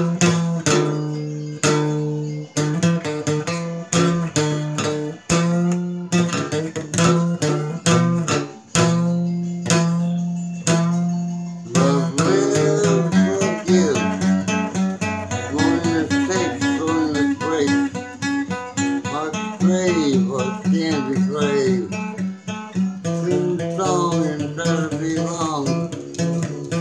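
Acoustic guitar strummed in repeated chords with ringing low notes. About halfway through, a low male voice joins in singing along over the strumming.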